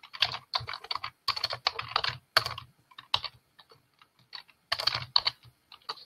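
Typing on a computer keyboard: quick runs of keystrokes for the first couple of seconds, then more scattered taps, with another flurry about five seconds in.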